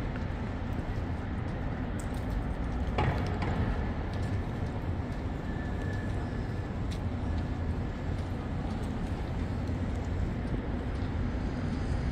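Downtown city street ambience: a steady rumble of traffic, with one short knock about three seconds in.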